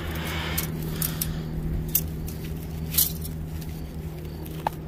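A few sharp metallic clicks and scrapes from handling a 330 Conibear body-grip trap and its coil springs while trying to compress them, over a steady low hum.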